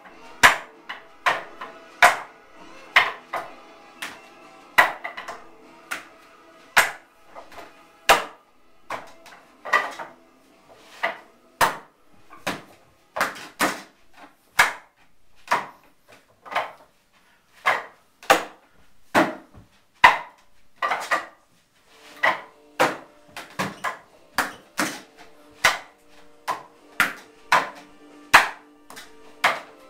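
Wing Chun wooden dummy (mook jong) being struck freestyle with the hands and forearms: sharp wooden knocks and clacks in an irregular rhythm, single hits and quick runs of two or three, about one to two a second.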